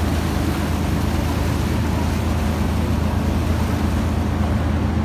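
Passenger catamaran's engines running steadily underway, a constant low drone under an even rush of wind and water.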